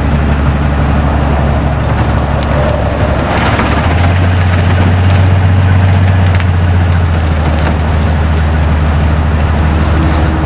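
The diesel engine of a railway snow blower drones loudly under heavy load as it forces its way through hard-packed snow, with a rushing hiss of snow being cut and thrown. The engine's pitch rises about four seconds in, just after a brief crunch, and settles back down near the seventh second.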